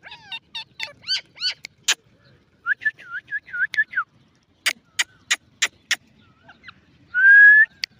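Ringneck parakeet calling: a quick run of short squeaky chirps, a wavering string of squeaks, then a few sharp clicks. Near the end comes one loud whistle, slightly rising, the loudest sound.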